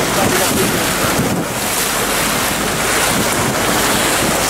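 Boat running at speed over open sea: wind buffeting the microphone and water rushing and splashing past the hull, a loud, steady noise.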